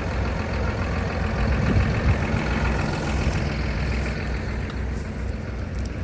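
Tractor engine running steadily at a low, even pitch, with a brief louder bump about two seconds in.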